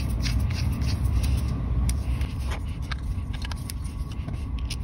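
Hex screwdriver driving small M3 machine screws into a 3D-printed plastic part: scattered small clicks and scrapes over a steady low rumble.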